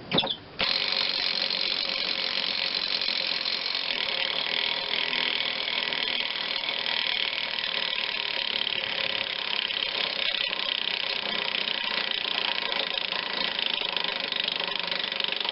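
Cordless impact wrench hammering continuously on a stubborn mower-deck spindle nut that won't break loose, after a brief knock at the start.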